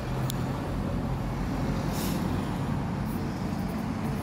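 Road traffic passing close by: a Cardiff Bus double-decker and a car drive past with a steady low engine hum, and a short hiss about two seconds in.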